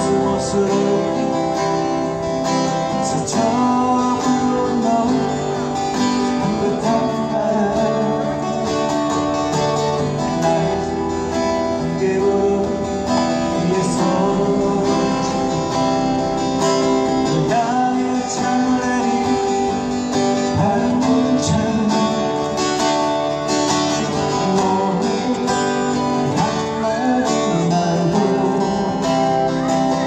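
Two acoustic guitars playing together in a live duo performance, strummed chords with picked melody lines, steady and continuous.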